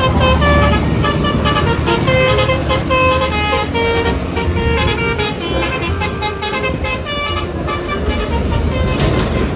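Basuri telolet bus horn playing a quick melody of short pitched notes over a low engine rumble.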